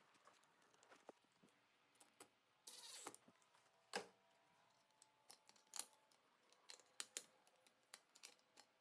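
Near silence broken by faint, scattered clicks and taps, with a brief rustle about three seconds in and a slightly louder tap a second later.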